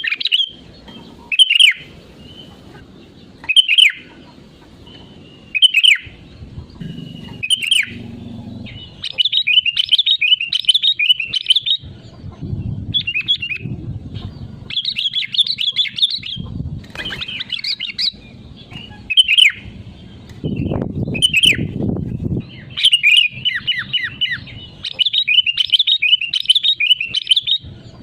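Sooty-headed bulbul (kutilang) singing. Loud single calls come about every two seconds at first; from about nine seconds in there are long runs of quick, chattering phrases. A low rumble comes and goes underneath.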